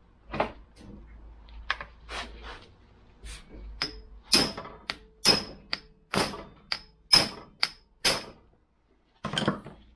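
Hammer striking a Snap-on hand impact driver: about ten sharp metallic blows, roughly two a second, starting about four seconds in, each with a brief ring. Lighter knocks and clatter of setting the tool in place come before them.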